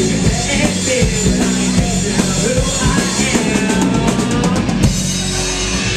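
Live rock band playing, with the drum kit to the fore. A quick drum fill runs from about three and a half seconds in, then the band holds a chord.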